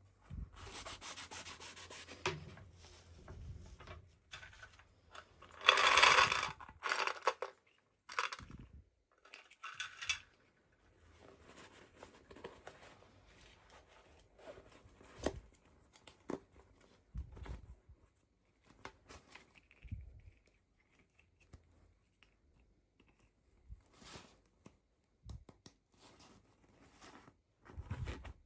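Toy packaging being handled and torn open: irregular rustling and tearing, loudest in a burst about six seconds in, then quieter rubbing and small ticks.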